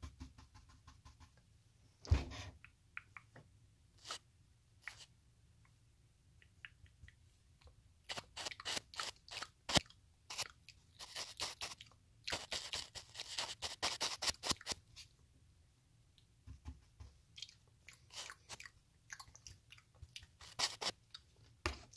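Makeup brush rubbing and dabbing close against a phone's camera and microphone: a run of scratchy strokes and clicks, busiest in the middle, with one louder knock about two seconds in.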